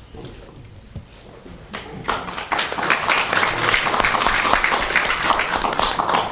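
A roomful of people applauding, the clapping starting about two seconds in and staying dense until it fades near the end.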